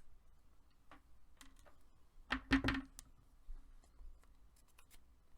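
Light clicks and knocks of hard resin figure parts being handled and fitted together, with a louder cluster of knocks about halfway through.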